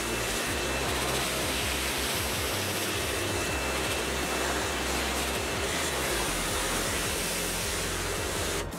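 Kärcher pressure washer running, its water spray hissing steadily onto a motorcycle to wet it down before the cleaner goes on. The spray cuts off suddenly just before the end.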